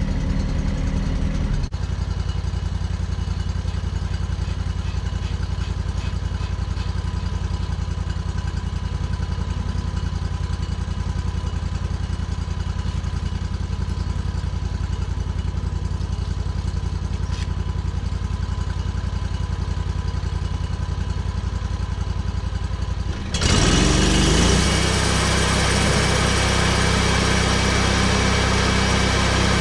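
Gasoline engine on a homebuilt bandsaw mill idling steadily, then throttled up suddenly about 23 seconds in to a louder, steady high-speed run with a hiss, the saw brought up to cutting speed.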